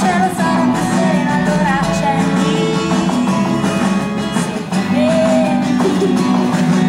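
Music: an upbeat pop song with acoustic guitar, playing on between sung lines, with a few short melodic phrases over the backing.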